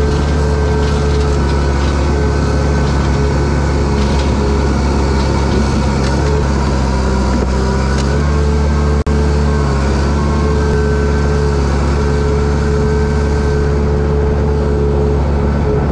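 Bulldozer's diesel engine running at a steady, unchanging throttle, with a brief dropout about nine seconds in.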